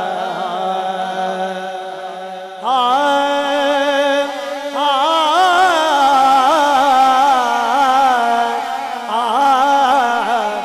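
A man singing a naat into a microphone, drawing out long ornamented notes that waver in pitch. The voice rises louder and higher a little under three seconds in, after a softer held line.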